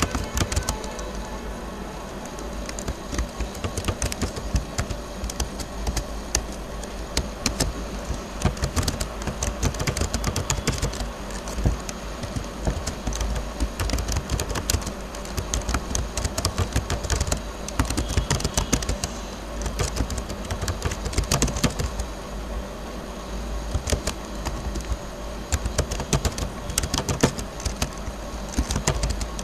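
Computer keyboard being typed on: quick, irregular keystroke clicks over a low steady hum.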